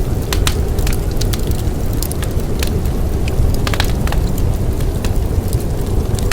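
Wood fire crackling, with irregular sharp pops and snaps, over a steady low rumble of storm wind.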